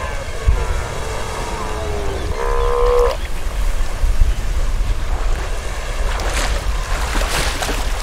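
Steller sea lion bull roaring in the first few seconds, a call that falls in pitch and then a shorter, higher held call, over the wash of sea surf and wind. Near the end the water splashes twice.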